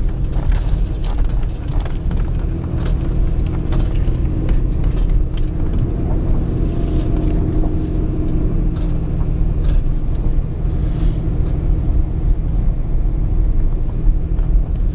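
Car driving slowly over a rough, uneven forest road, heard from inside the cabin: a steady low rumble of engine and tyres, with scattered clicks and knocks as it goes over the bumps.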